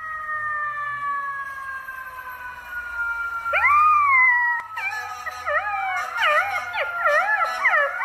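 Golden retriever puppy howling with its head raised: a rising-and-falling howl about three and a half seconds in, then quick wavering howls with the pitch bobbing up and down. It comes after a long high tone that slides slowly down over the first few seconds.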